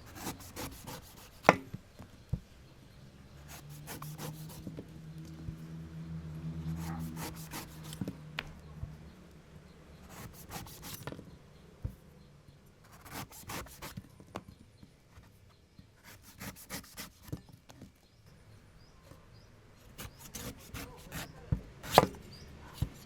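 Coconut being worked by hand: groups of quick scraping, rasping strokes with short pauses between them. A few sharp knocks stand out, the loudest near the start and near the end. A low steady hum runs from about four to eight seconds in.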